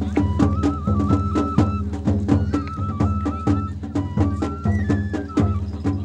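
Japanese festival hayashi music: a high flute melody over quick, steady drum strikes, played live with a carried festival float.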